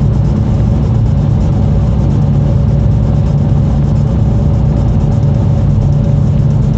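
Land Rover Freelander 2's 2.2-litre four-cylinder turbodiesel pulling the car along at a steady pace: a steady low drone of engine and road noise that holds even, without rising or falling.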